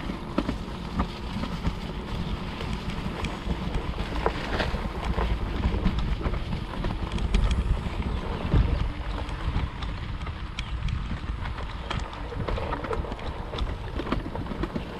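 Wind buffeting the microphone of a moving e-bike, over the rumble of its 4-inch-wide fat tyres rolling on a grassy trail, with scattered small clicks and rattles.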